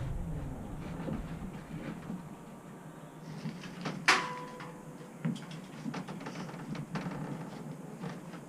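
Faint scattered clatter and knocks, with one sharp clank about four seconds in that rings briefly.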